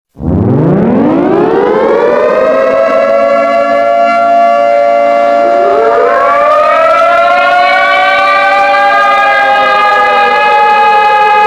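Civil defense siren winding up from silence to a steady wail. About halfway through, a second siren tone winds up to a higher pitch, and near the end the lower one starts to wind down.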